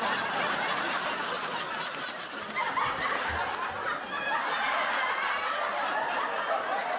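Sitcom laugh track: many people chuckling and laughing together, keeping up a steady level.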